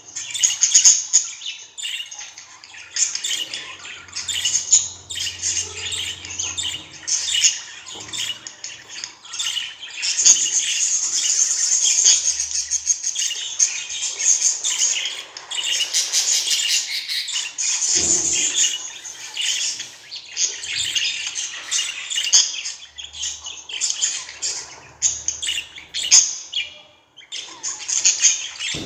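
Pet budgerigars chattering: a dense, continuous warble of rapid chirps and squawks, busiest and most sustained in the middle stretch.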